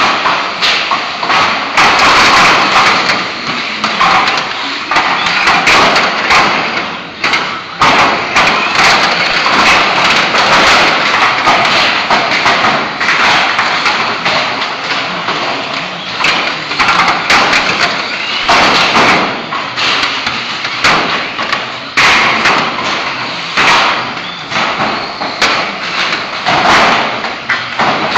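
Radio-controlled stock cars racing on a concrete floor. A steady whirr of small motors and tyres runs throughout, with frequent knocks and thuds as the cars hit each other and the steel rail around the track.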